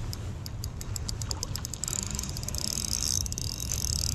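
Insects trilling in a high steady hiss, which breaks into a quick run of separate high chirps for about the first two seconds, over a low rumble.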